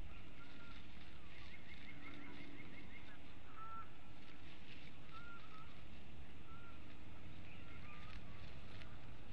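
Steady low outdoor rumble and hiss with faint, short wild bird calls scattered through it, and a quick run of about a dozen high notes between about one and a half and three seconds in.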